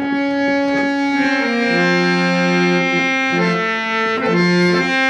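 Harmonium playing a melodic interlude of held, sustained notes in a devotional bhajan, with no singing.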